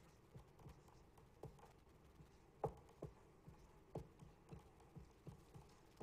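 Faint, irregular taps of a dry-erase marker against a whiteboard during writing, about one or two a second, the loudest a little under three seconds in.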